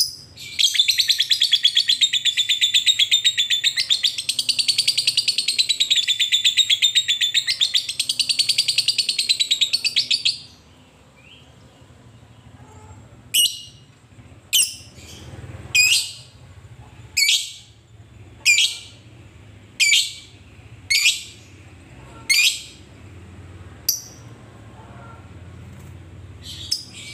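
Fischer's lovebird giving a long, rapid chattering trill, the 'ngekek' that lovebird keepers prize, lasting about ten seconds. After a short pause it gives a string of sharp single chirps, a little over a second apart.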